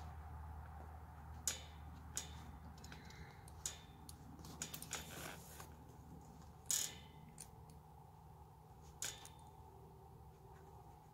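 Hand-sewing rabbit-fur pelts: faint scattered small clicks and rustles as needle and thread are worked through the hide, the sharpest click about two-thirds of the way in.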